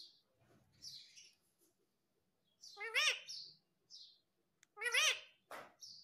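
Indian ringneck parrot calling: a few short high chirps, and two louder, wavering, squawk-like calls about two seconds apart near the middle and end.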